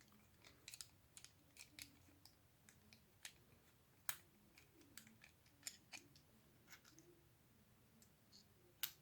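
Faint, irregular metallic clicks and ticks of a lock pick and tension tool working the pins of an Abus 72/40 padlock, with two sharper clicks about four seconds in and just before the end.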